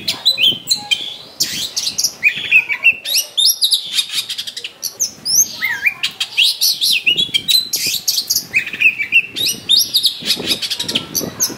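Oriental magpie-robin (kacer) singing a loud, rapid, unbroken run of varied whistles, sweeping glides and short sharp notes: its fighting-mode song, full of fill-in phrases borrowed from other birds.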